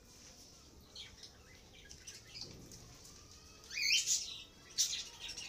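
Birds chirping, faint at first, with a short rising chirp about four seconds in and another high chirp near the end.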